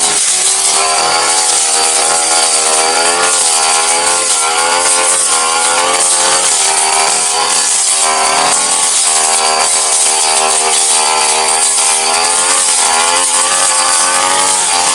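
Brush cutter running at high revs with a stamvik blade, its engine pitch dipping and recovering again and again as the blade bites into grass down to the soil.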